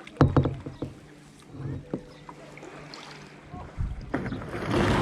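Sharp knocks against a kayak, several close together about a quarter second in and a few lighter ones later, then a swelling rush of water or wind near the end.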